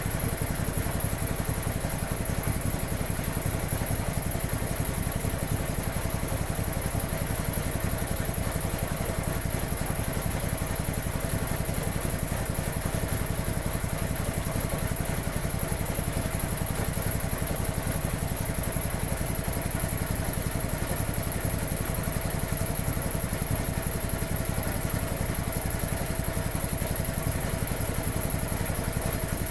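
Vintage 1950s Quincy 320 reciprocating air compressor, belt-driven by a 3 hp electric motor at about 700 rpm, running steadily with a fast, even pumping beat.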